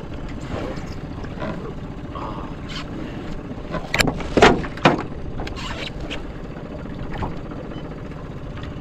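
Steady low noise of a small aluminum fishing skiff out on the water, with a quick cluster of sharp knocks and clicks about four to five seconds in as fishing rods and gear are handled against the boat.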